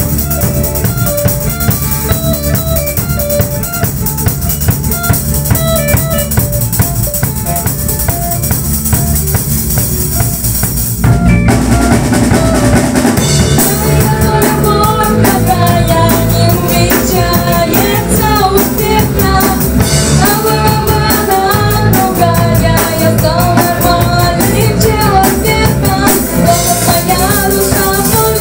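A live band rehearsing with drum kit, bass guitar, electric guitar and violin playing together. About eleven seconds in, the music grows louder and fuller, with stronger drum hits under a wavering melody.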